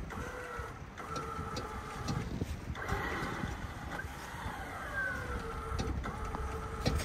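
Electric recovery winch on a Ford Transit camper's front bumper whining steadily as it reels in its line to pull a stuck Sprinter van out of snow, over a low engine rumble; about five seconds in, the whine slides down in pitch as the load comes on.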